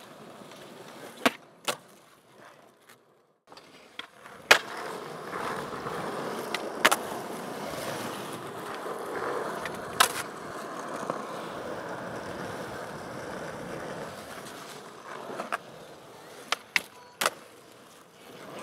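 Skateboard wheels rolling on concrete, with several sharp clacks of the board striking the ground during tricks.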